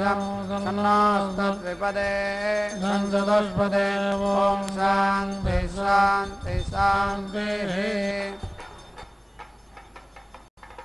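Mantras chanted on a steady, held pitch in the temple ritual, stopping about eight seconds in.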